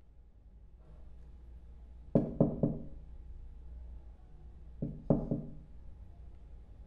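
Knocking on a door: three quick raps about two seconds in, then three more about five seconds in, over a low steady hum.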